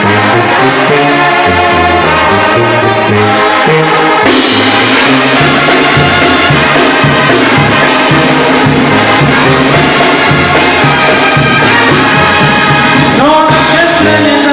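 Live banda brass band playing loudly: trombones and trumpets over a stepping bass line, the sound filling out about four seconds in, with a rising brass swell near the end.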